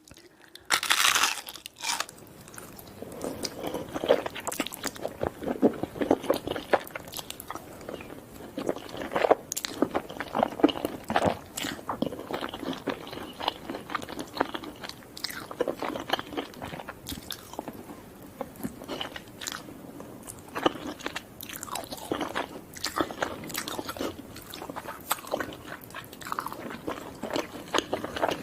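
Close-miked eating of fast food: crunchy bites and chewing in an irregular run of crackly crunches, with the loudest crunch about a second in.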